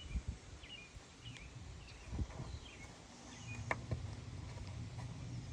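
Quiet outdoor background: faint short high chirps, a couple of light clicks, and a low steady hum that sets in about three seconds in.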